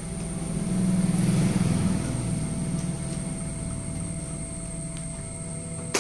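Low engine rumble of a motor vehicle. It swells during the first two seconds, then settles into a steady drone.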